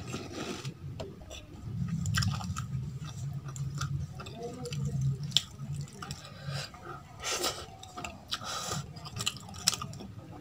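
Close-miked chewing of a mouthful of food, with a few short crisp crunches and soft squishing as fingers mix rice and curry on a steel plate.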